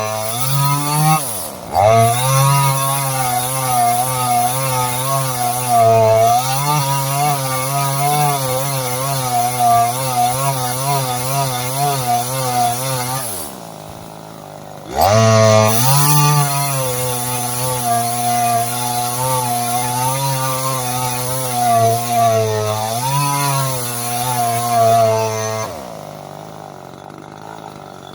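Chainsaw engine revving hard, its pitch wavering up and down. It drops briefly about a second and a half in, dies away for a second or so near the middle before revving back up, then falls away near the end.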